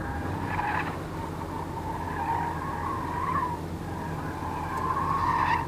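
Tyre squeal from a car being pushed through the cone course, a wavering squeal that comes and goes and is loudest near the end. Under it, the steady low idle of a Ford Mustang's 5.0 V8.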